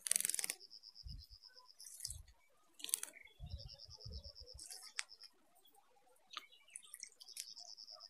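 A small finch splashing as it bathes in a shallow puddle, with one loud splash right at the start and smaller ones around three and five seconds in. A high, steady buzzing trill comes and goes in several spells, and there are a few low thumps.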